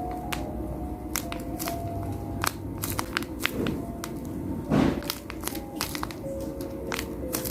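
Hands handling plastic packaging: scattered taps and clicks with light crinkling, and one louder rustle a little before five seconds in, over faint background music.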